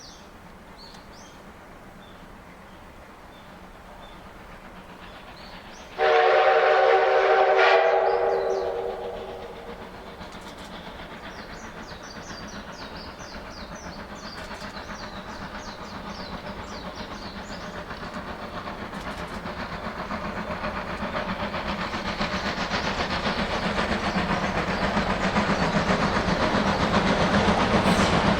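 D51 200 steam locomotive's whistle gives one loud blast about six seconds in, lasting about two seconds and then dying away. After it the approaching train's running sound grows steadily louder.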